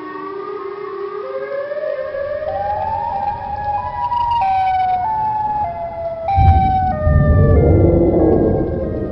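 Siren Head's wail: a siren-like howl that climbs in steps for about four seconds, then steps back down. A loud rumbling static cuts in suddenly about six and a half seconds in and carries on under it.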